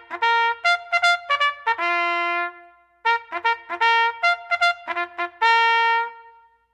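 Background music: a trumpet playing two phrases of quick, short notes, each phrase ending on a long held note.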